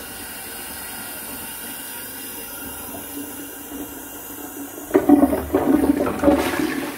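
Toilet cistern refilling with a steady hiss. About five seconds in the toilet is flushed, a loud rush of water into a blocked bowl sealed airtight under a taped-on plastic bag, with the bag rustling as the trapped air and water push against it.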